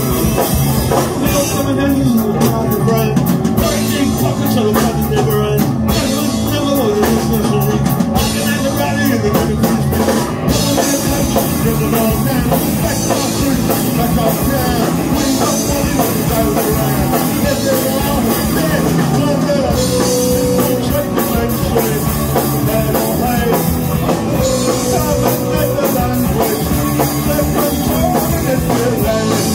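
Punk rock band playing loudly live: two electric guitars, a bass guitar and a drum kit.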